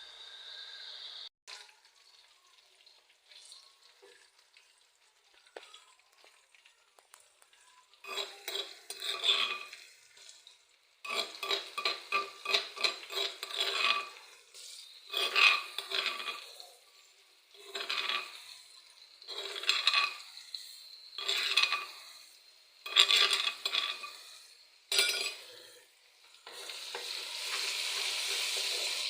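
Curry being stirred in a pan: repeated scraping strokes in short bursts every second or two, with a steady frying sizzle over the last few seconds. The first several seconds are faint, with only scattered small clicks.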